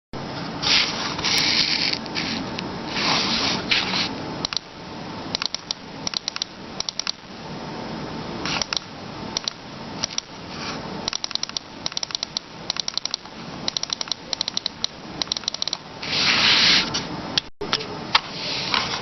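Mouse microswitches clicked repeatedly, in quick runs of several sharp clicks with short pauses between runs. A few brief bursts of rubbing or scraping noise sound between the runs, near the start, about three seconds in and about sixteen seconds in.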